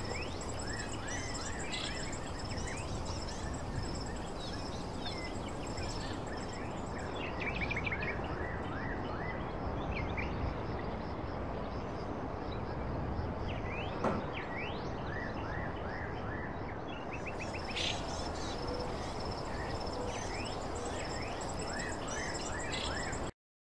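Outdoor ambience: birds chirping in short falling calls, insects trilling in a high pulsing drone, over a steady background hiss. It all cuts off suddenly near the end.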